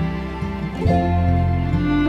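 Background music with long held notes; a new, deeper chord comes in a little under a second in.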